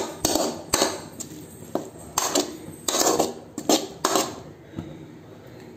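Metal spoon scraping and clinking against a metal kadai while stirring onion-tomato masala, in irregular strokes that thin out near the end.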